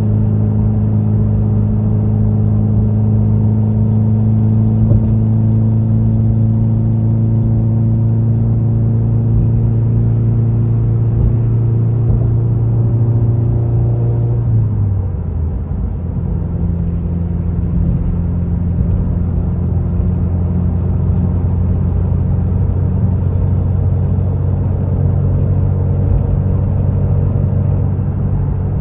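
Subaru WRX's turbocharged flat-four engine droning steadily at cruise, heard from inside the cabin. About halfway through, its pitch drops and the sound dips briefly, then it holds a steady lower note.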